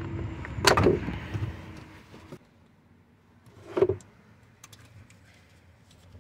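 Plastic clicks and rattles of wiring-harness connectors being handled and unplugged under a dashboard, loudest about a second in and again near four seconds. A steady hum underneath cuts off suddenly about two and a half seconds in.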